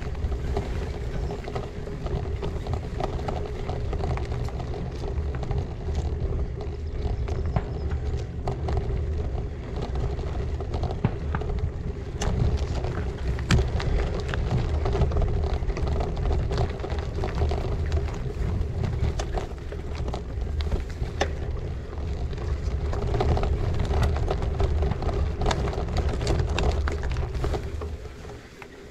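Gravel bike rolling along a gravel track: the tyres rumble over the surface with frequent small clicks and rattles, a steady hum, and wind buffeting the microphone. The sound eases off near the end.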